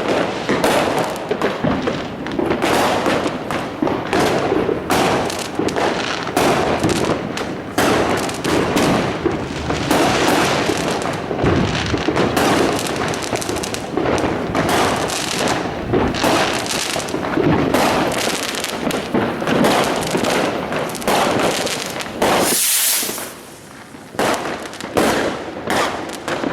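Fireworks going off: rapid, overlapping bangs and firecracker crackling. About 22 seconds in there is a brief hissing whoosh, followed by a short lull.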